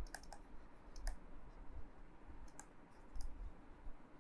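Faint, irregular clicks and taps of a stylus on a tablet screen while handwriting is being written.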